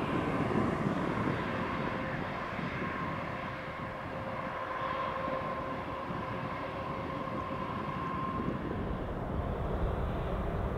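Jet engines of a twin-engine airliner at takeoff power on the takeoff roll and climb-out: a steady rumble with a high whine that fades out about eight seconds in.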